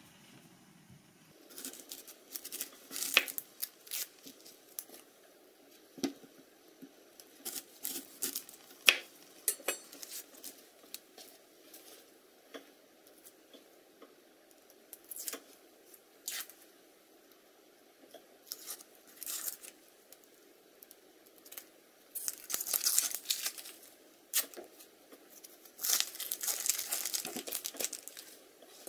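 Dry, papery onion skin being peeled off by hand: scattered crackles and crinkles, with two longer stretches of rustling, tearing skin near the end.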